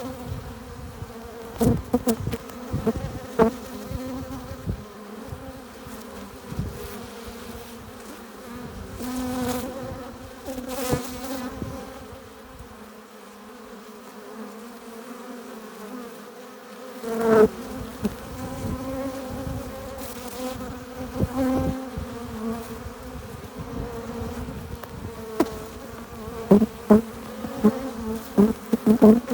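Honeybees buzzing at the hive entrance: a steady hum of many wings, swelling now and then as single bees fly close past. Near the end come a run of short, sharp knocks.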